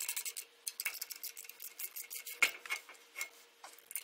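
Hand ratchet with an 11/16 socket and extension clicking as it tightens the nuts on an electric brake backing plate. The clicks come fast at first, then in slower, scattered runs, with one louder knock about two and a half seconds in.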